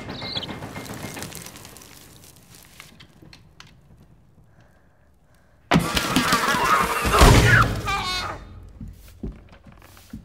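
Film sound effects of the Monster Book of Monsters attacking. After a quiet stretch, a sudden loud burst of flapping, rustling paper and thrashing starts a little past halfway, with a deep snarl and then a wavering growl near its end.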